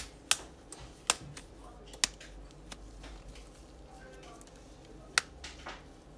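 Sharp plastic clicks as the Realme 5 Pro's midframe clips are pried loose from the display assembly with a pick: several snaps close together in the first two seconds and one more about five seconds in.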